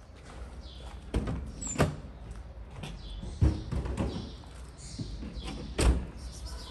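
Scattered knocks and thumps, five of them louder, spread irregularly over a steady low rumble.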